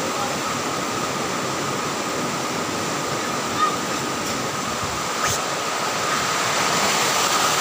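Steady rushing noise with a faint high whine, and a single short knock about five seconds in.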